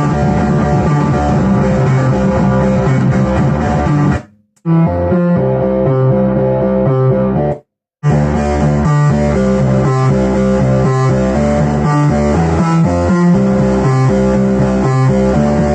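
Analog synthesizer music from a Behringer MS-1 and Pro-1 run through a Behringer Virtualizer Pro DSP2024P effects unit: layered synth notes over a rhythmic bass line. The sound cuts out completely twice, briefly, about 4 and 7.5 seconds in.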